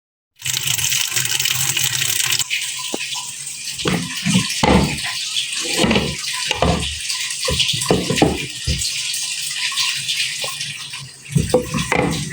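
Water running steadily from a kitchen tap into a sink, starting about half a second in, with irregular knocks and clunks throughout.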